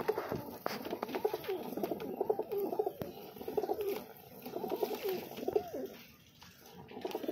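Domestic pigeons cooing in repeated bursts, with a short lull about six seconds in before another coo.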